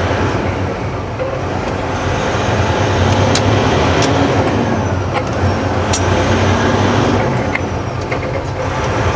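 Heavy truck's diesel engine heard inside the cab, running under load as the truck accelerates, with a steady low drone that swells a little about two seconds in and eases near the end. A few short clicks or rattles sound over it.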